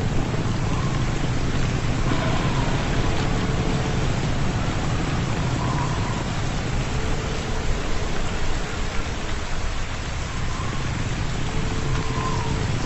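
Heavy rain pouring down steadily, a dense even hiss with a low rumble beneath it.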